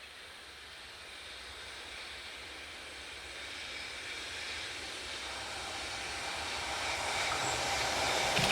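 An EH500 electric locomotive hauling a JR Freight train approaches along the line; its rumble grows steadily louder throughout.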